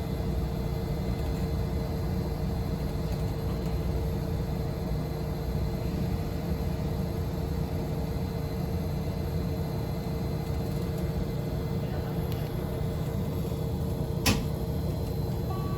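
Yoro Railway electric train cabin sound: a steady low rumble with a constant hum. A single sharp click comes near the end.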